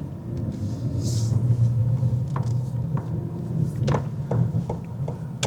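Low, steady rumble of a car running, growing louder at the start, with a few light knocks and clicks in the second half.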